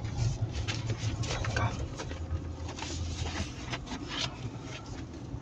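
Inside a car, a low engine hum under rustling and small clicks of things being handled. The hum drops away after about three and a half seconds.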